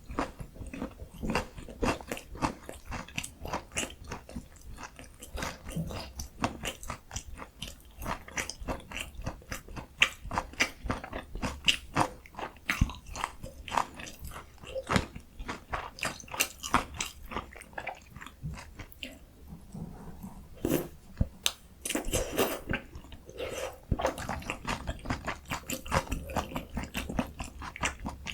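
Close-miked crunching bites and chewing of a breaded, deep-fried Korean pork cutlet (donkkaseu) topped with kimchi and cheese: a run of quick, irregular crackles from the crisp crust, with a denser burst of crunching about three-quarters of the way through.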